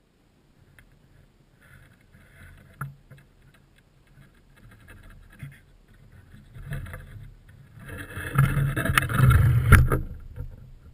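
Rustling and scraping with a few sharp knocks, getting much louder for about two seconds near the end, consistent with someone shifting and handling gear close to the microphone.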